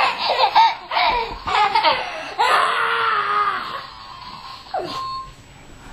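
Young children squealing and laughing, with one long high squeal about two and a half seconds in, then quieter near the end.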